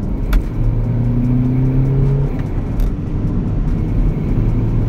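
BMW 123d's 2.0-litre four-cylinder twin-turbo diesel, fitted with a modified intake, larger intercooler and custom full exhaust, heard from inside the cabin pulling under acceleration. Its note rises in pitch, then drops a little over two seconds in at an upshift of the manual gearbox and carries on lower.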